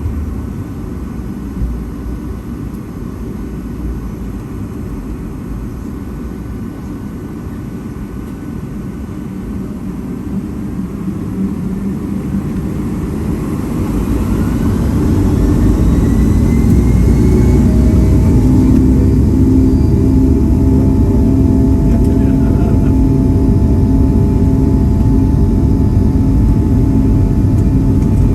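Boeing 757-200's Pratt & Whitney PW2000 turbofans heard from inside the cabin: a steady low rumble, then about ten seconds in the engines spool up with a rising whine to a loud, steady takeoff-thrust drone.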